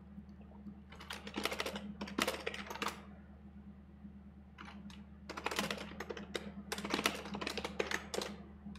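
Fast typing on a computer keyboard: two runs of rapid keystrokes with a pause of about two seconds between them, over a steady low hum.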